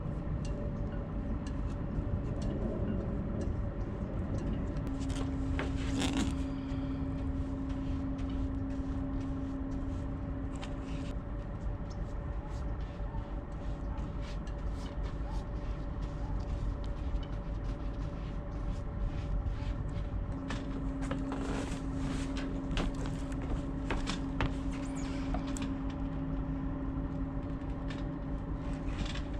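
Light clicks and knocks of hand work on a fibreglass deck: an epoxy brush working around the hatch opening and a plywood hatch base being handled. They sit over a steady low rumble, with a steady hum that comes in twice, about five seconds in and again after twenty seconds.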